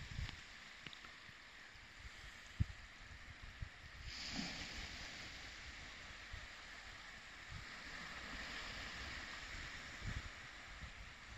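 Small, shallow waves washing in over a flat sandy beach: a faint, steady hiss of water, with a few short low thumps.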